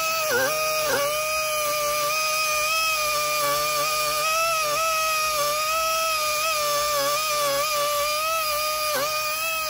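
Cordless rotary tool with a small polishing disc running at high speed against the aluminium water pump mounting face of an engine block, a steady high whine. Its pitch sags briefly when it is pressed harder, about half a second in, at a second, and near the end.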